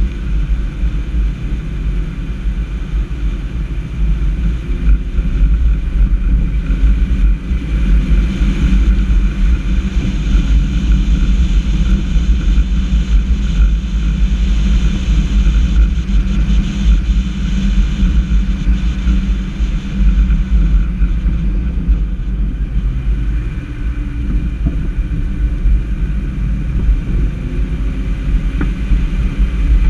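Steady low rumble of a vehicle driving along a street, with wind rushing over the microphone.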